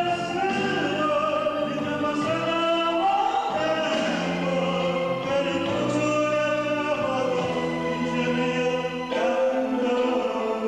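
A person singing a pop song over musical accompaniment, with long held notes that slide between pitches.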